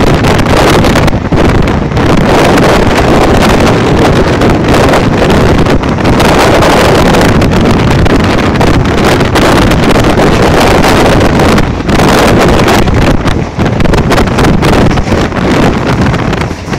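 Loud, constant wind buffeting the microphone, held out at the door of a Mumbai suburban electric local train running at speed.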